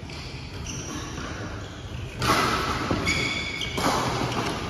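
Badminton rally on an indoor court: racket strikes on the shuttlecock with sneaker squeaks and footfalls, getting louder and busier about two seconds in.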